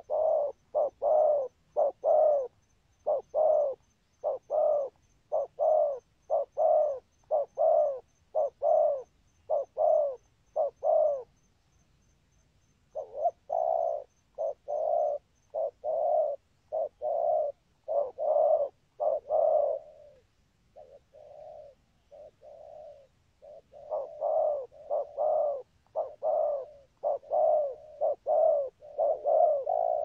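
Spotted dove giving its excited bowing coo ('gù'): a fast run of short, low coos, about two a second. It breaks off for a moment about eleven seconds in, goes softer around twenty seconds, then picks up loudly again.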